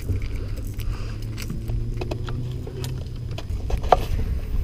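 Fishing tackle being handled: light clicks and jingling of a chrome topwater lure's treble hooks and a baitcasting reel, over a steady low rumble. There is a sharper click near the end as the lure is cast.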